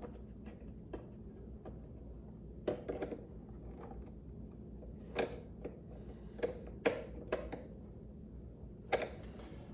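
Light, irregular metal clicks and taps of pliers working on a switch's mounting nut, tightening it just enough that it won't come loose.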